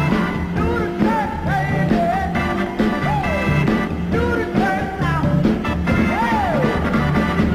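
1960s soul record playing: a steady beat of drums and bass, with a lead line that keeps swooping up and falling back in pitch.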